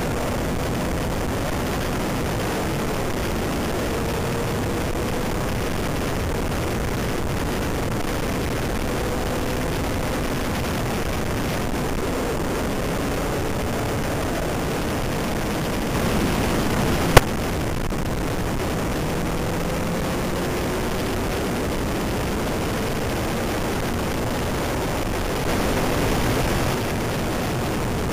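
Motorcycle ride heard through a bike-mounted camera: steady heavy wind rush over the microphone, with the motorcycle engine's note faintly rising and falling underneath. The wind swells briefly twice, and a single sharp click comes about seventeen seconds in.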